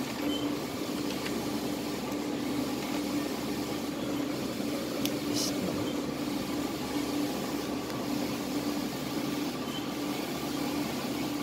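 Steady mechanical hum and whir of running equipment in a small room, with a held tone that fades in and out and a few faint ticks.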